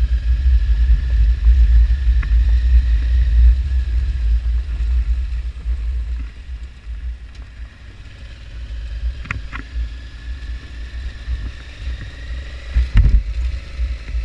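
Adventure motorcycle riding along a stony dirt road, heard from on the bike: a steady low rumble of engine and wind, easing off somewhat midway. A few sharp knocks come through near the middle and again near the end.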